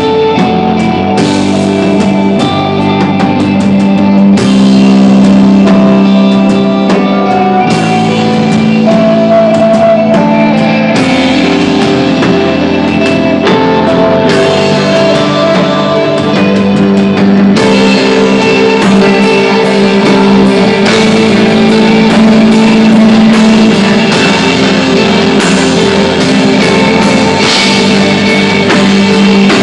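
Live instrumental rock band playing loud and steady: electric guitar lines over sustained low notes, with a drum kit keeping time and cymbal crashes. There are no vocals.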